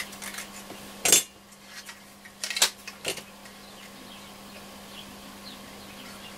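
Sharp metallic clicks and clinks as the thin metal bottom cover of a transistor radio module is prised off and set down on the bench: a handful of clicks in the first three seconds, two of them louder, then only a faint steady hum.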